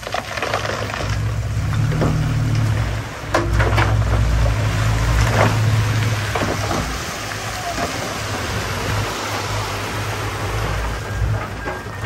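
Bulldozer's diesel engine running under load as a steady low rumble, with scattered knocks and clanks from the machine working.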